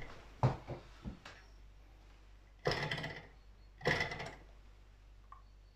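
Light handling noises at a tabletop: a few short knocks in the first second and a half, then two brief rustling sounds about a second apart near the middle.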